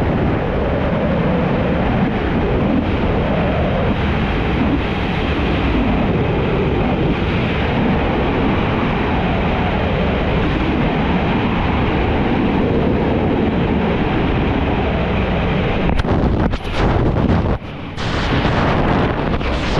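Freefall wind rushing loudly over a helmet camera's microphone, steady and dense. Near the end the rush breaks up into gusts and briefly drops away as the parachute deploys.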